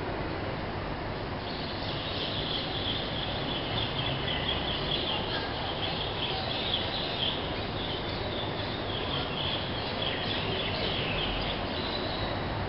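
Birds chirping in a rapid, unbroken twitter from about two seconds in until near the end, over steady background noise.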